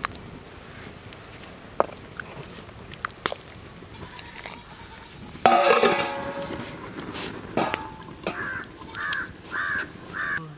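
Farm animal calls over a low background with a few scattered clicks: one loud call about halfway through, then four short calls in a row near the end.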